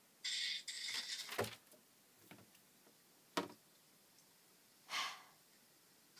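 Paper rustling as a cut-out paper figure is handled for about a second, then two sharp knocks as a toy figure is picked up and set down on a desk, and a short hiss near the end.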